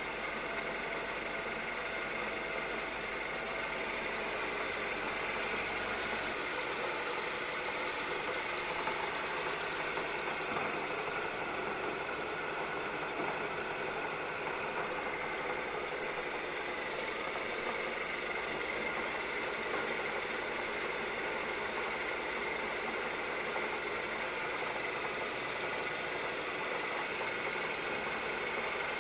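Bridgeport milling machine running steadily as a half-inch end mill cuts a keyway along a shaft, with oil in the groove: the spindle hums and the cutter chews through the metal evenly, with no pauses.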